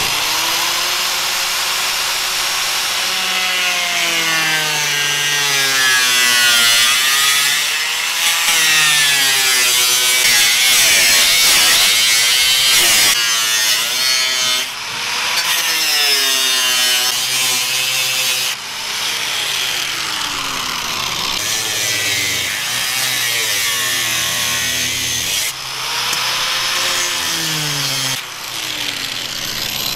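Corded angle grinder with a metal cutting blade cutting through a van's sheet-metal roof: a continuous loud whine and grinding, its pitch sagging and rising again as the blade is pushed into the cut and recovers, easing off briefly a few times in the second half.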